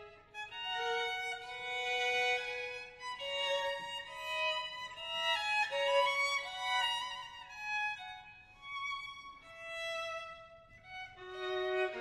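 Background music: a violin playing a slow melody of held notes that rise and fall in phrases.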